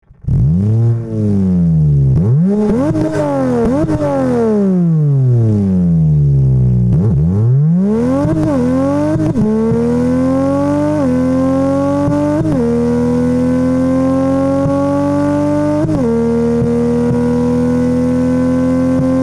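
Toyota Supra MK4's 2JZ straight-six engine revved up and down several times in quick blips, then pulling hard and climbing in pitch through the gears, with a sudden drop in pitch at each of about four upshifts.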